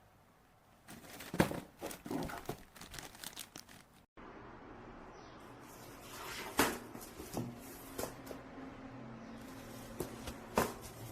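Plastic packaging crinkling and crackling as it is handled, in a run of sharp clicks. A cut partway through is followed by a steady low hum with a few sharp clicks and knocks.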